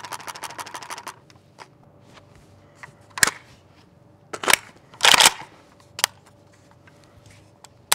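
Metallic clicks and clacks of a Pioneer Arms 5.56 AK-pattern rifle being handled: a quick rattle of small clicks at the start, then a few separate sharp clacks and one longer, louder clatter about five seconds in as the magazine, safety and action are worked.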